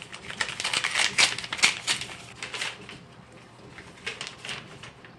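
A paper envelope being torn open and the letter inside pulled out and unfolded: a quick run of crisp paper rips and rustles, busiest in the first three seconds, with a few more rustles about four seconds in.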